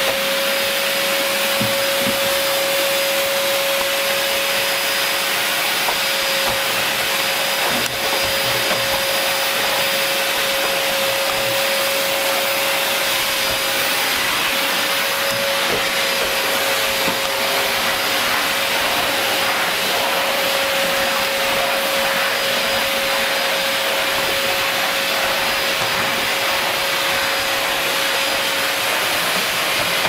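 Vacuum cleaner running steadily as it is pushed over carpet: a rush of air with a steady motor whine over it.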